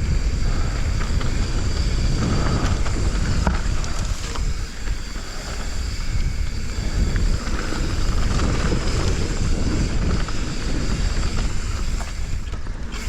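Wind buffeting the microphone of a GoPro Hero 10 action camera on a moving mountain bike, a steady low rush mixed with the rumble of the tyres on a dirt trail. A few sharp clicks from the bike come a few seconds in.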